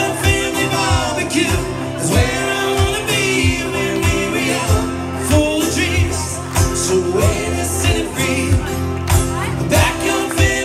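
Live band playing a country song: amplified male lead vocals over acoustic guitars, bass and a steady drum beat of about two hits a second.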